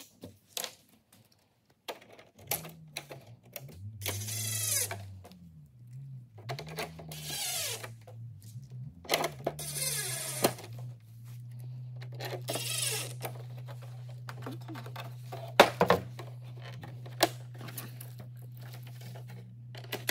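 Cordless drill-driver driving screws into a plastic roof-fan housing, in several short runs with the motor pitch rising and falling. A steady low hum follows, with a few sharp clicks near the end.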